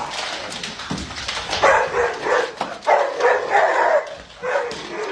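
A dog vocalising in a string of about five short barks and whines.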